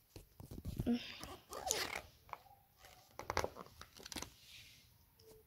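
Pages of a picture book being turned: paper rustling and sliding, with a few light knocks from handling the book.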